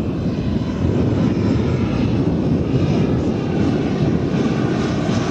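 Four JetsMunt 160 model gas turbines of a 1/5-scale RC Avro Vulcan running steadily as the model flies past overhead, a continuous loud jet rush.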